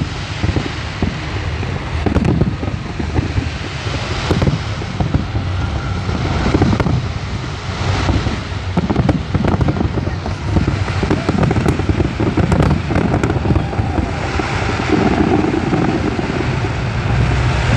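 Fireworks display: aerial shells bursting with bangs and crackles, one after another, with no break.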